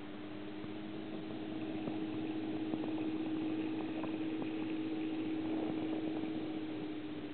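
Reef aquarium's pumps running: a steady low hum with a soft wash of moving water, a few faint ticks, swelling a little in the middle.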